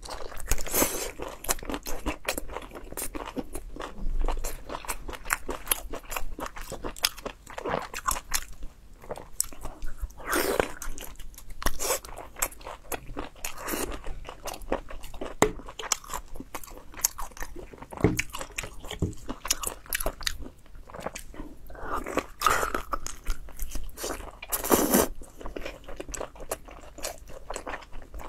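Close-miked biting and chewing of chili-coated whole squid: a dense run of short mouth clicks and smacks, with a few louder bites.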